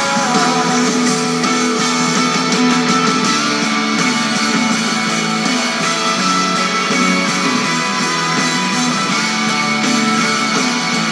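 Music led by guitar.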